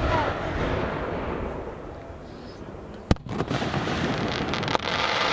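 Aerial fireworks shells bursting: a sharp bang at the start, then a fading rumble and hiss. A second bang comes about three seconds in, followed by rapid crackling to the end.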